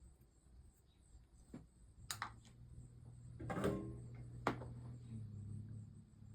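A few light clicks and knocks of small objects being handled on a work table, over a low steady hum that starts about two seconds in.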